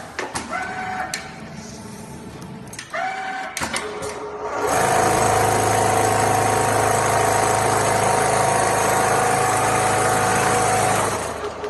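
Richpeace automatic template sewing machine: clicks and short whirring moves at first, then from about five seconds in it stitches steadily at speed for about six seconds before it stops.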